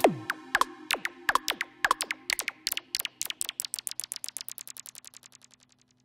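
Electronic music from Roland Boutique synthesizers: short synth zaps, each falling in pitch, repeat faster and faster as they fade away. A faint low held tone sits underneath and dies out near the end.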